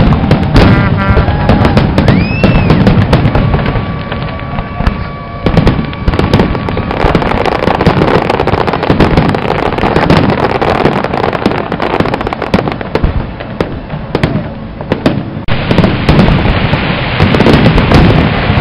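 Aerial fireworks display: a dense run of shell bursts and crackling. It eases somewhat in the middle, then thickens into a heavier barrage of crackle from about 15 seconds in.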